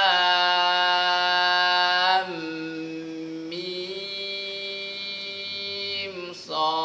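A man chanting the Quran's disjointed letters (huruf muqatta'ah) in tajwid recitation, holding each letter's vowel for a long, steady note as the prolonged madd requires. About two seconds in, the held note drops to a softer, steady tone, and a new syllable begins near the end.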